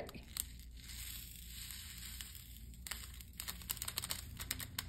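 Tiny round diamond-painting drills poured from a plastic baggie into a plastic tray: a soft rushing patter for about three seconds, then scattered sharp light clicks as more drills drop in.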